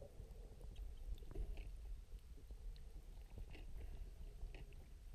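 Muffled underwater sound through a camera housing: a low rumble of moving water with scattered small clicks and crackles.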